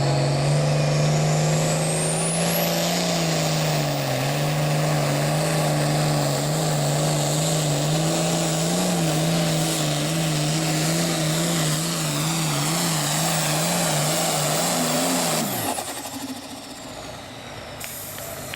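Turbocharged diesel engine of a Super Farm class pulling tractor at full throttle under load, its note wavering up and down, with a high turbo whine rising over the first few seconds. About three-quarters of the way through, the engine note falls away sharply and the sound drops off as the throttle is shut at the end of the pull.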